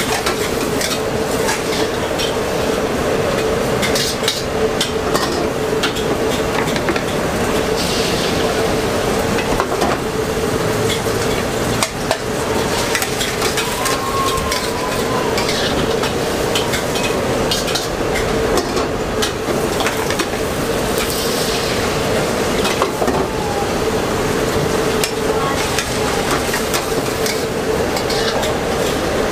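An egg crepe frying and sizzling in a wok over a gas flame, with a metal spatula scraping and tapping against the wok again and again, over a steady hum.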